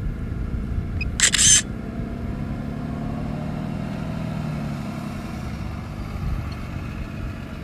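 A camera shutter sound about a second in, as a still photo is taken, over the steady low hum of an engine running.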